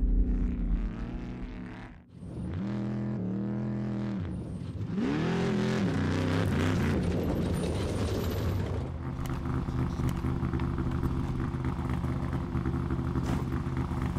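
Off-road trophy truck's engine revving up and down in rising and falling swoops, then settling into a steady idle from about nine seconds in.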